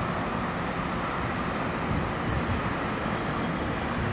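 Diesel locomotives running, a steady low rumble with a faint engine hum.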